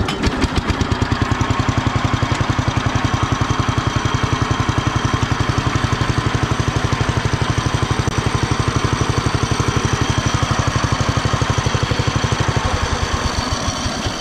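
Allis-Chalmers B-12 garden tractor's single-cylinder engine starting and then running at idle with an even, steady firing beat. The tractor creeps along in low-range first gear through its two-speed Hi-Lo pulley, which cuts road speed by about a third. It gets a little quieter near the end.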